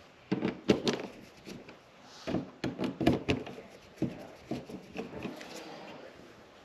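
Irregular clicks, taps and brief scraping of an electrical device and its screws being handled and worked into a wall box.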